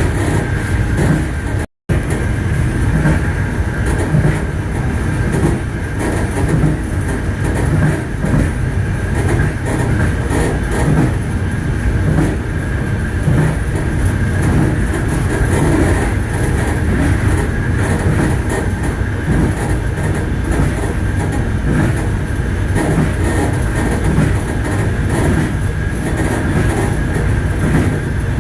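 Train wheels running on the rails, heard from the last carriage: a steady loud rumble and clatter, with the sound cutting out for a split second about two seconds in.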